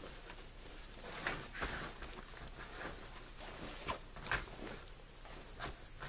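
Cloth rustling with irregular short rips as the inside seam of a pants leg is pulled open, the stitches coming loose.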